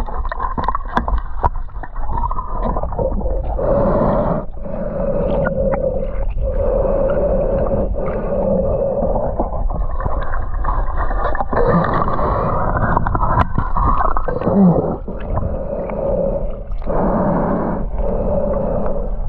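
Muffled underwater water noise, gurgling and rushing in swells of a couple of seconds each, as heard by a submerged camera during spearfishing.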